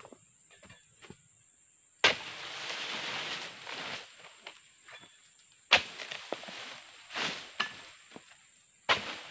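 A dodos, a chisel blade on a long pole, is driven into oil palm frond bases in several sharp chopping strikes. About two seconds in, a strike is followed by a long, loud rustle as a cut frond falls through dry leaves, and smaller rustles follow the later strikes.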